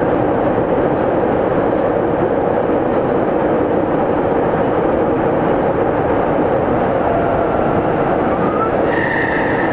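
Meitetsu 317F commuter train running, heard from inside the car: a steady, loud rumble of wheels and running gear. A brief high-pitched squeal comes near the end.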